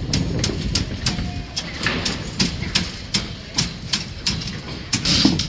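Sharp metallic clicks and clinks of steel rebar being tied into a beam cage with tie wire and pliers, a few a second at irregular spacing, over a steady low rumble.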